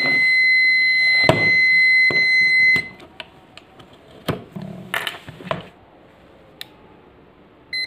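ZOYI ZT-QB9 clamp meter's buzzer sounding a steady high beep that cuts off about three seconds in. Then a few clicks and knocks from the test-lead plugs being handled, and one short beep from the meter near the end.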